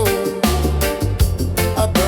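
Reggae music with a deep bassline and a steady beat.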